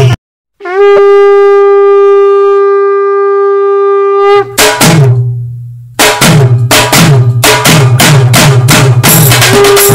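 Background music: the beat cuts off abruptly, then one long held note sounds for about four seconds. Drum hits come back in, and a steady drum beat resumes about six seconds in.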